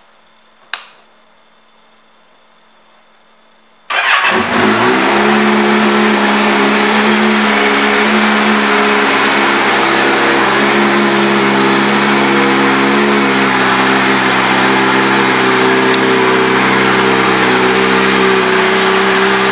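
A click just under a second in, then about four seconds in the 2017 Kawasaki Z900's inline-four engine fires up. It flares briefly in pitch and settles into a steady idle.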